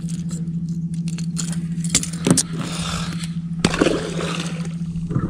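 Boat motor running with a steady hum, with two sharp knocks and a scraping rustle in the middle.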